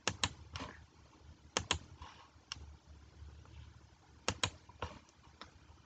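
About a dozen sharp computer clicks, several in quick pairs, in three bunches, as the presentation slides are changed.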